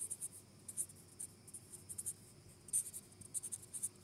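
Marker tip writing on paper: a quick, irregular run of short, high scratchy strokes as letters are written.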